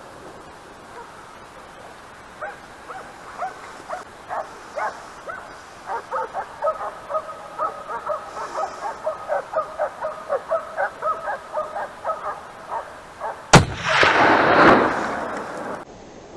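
Hunting dogs barking and baying at a wild boar in quick repeated calls, two or three a second. About three seconds before the end, a single sharp rifle shot from a .308 bolt-action rifle, its report rolling on for about a second and a half.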